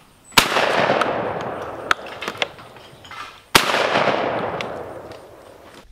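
Two shotgun shots at clay targets, about three seconds apart, each followed by a long rolling echo that fades out. A few light clicks come between the two shots.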